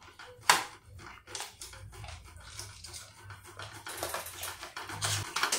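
Calabresa sausage being grated by hand on a metal box grater: a run of quick rasping scrapes, with a sharp knock about half a second in.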